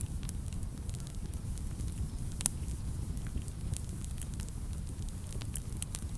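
Wood fire burning in a fireplace: a steady low rumble of flames with frequent sharp crackles and pops, one louder pop about two and a half seconds in.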